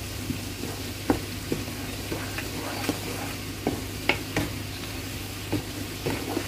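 Garlic cloves sizzling steadily as they fry in hot mustard oil, stirred with a wooden spatula that scrapes and knocks against the pan in irregular sharp clicks.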